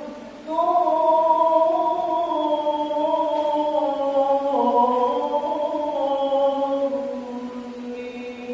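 An imam's voice chanting Quran recitation aloud during congregational prayer, in long melodic phrases that rise and fall in pitch. A phrase begins about half a second in and continues as one long held line.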